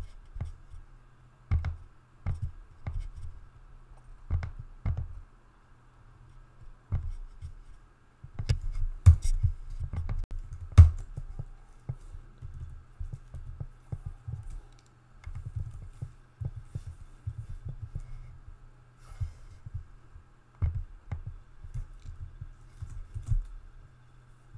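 Computer keyboard typing in irregular spurts of keystrokes, with a quicker run about eight to eleven seconds in that holds the two sharpest strokes, over a faint steady hum.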